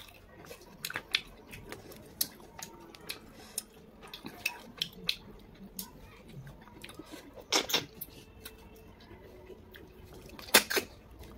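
Eating cooked snails by hand: many small clicks and taps of snail shells against each other and the plate, with two louder mouth sounds at the snails about seven and ten and a half seconds in.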